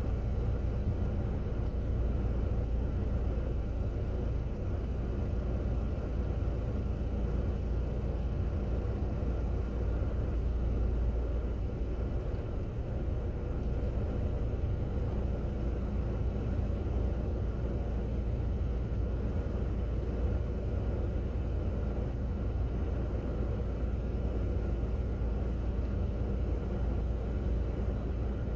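Car driving along: a steady low rumble of road and engine noise, with a faint even hum.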